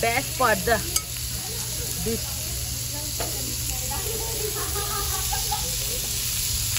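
Marinated beef and chicken drumsticks sizzling on a hot grill grate: a steady frying hiss, with a person's voice briefly over it in the first second.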